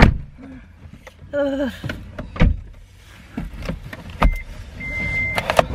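Sounds inside a car: a sharp knock at the start, the loudest sound, then scattered clicks and handling noises, and two short high beeps near the end.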